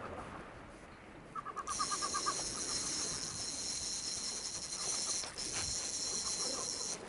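Fast-forwarded outdoor audio: a quick run of short high chirps about a second in, then a steady high-pitched whine that cuts off abruptly near the end.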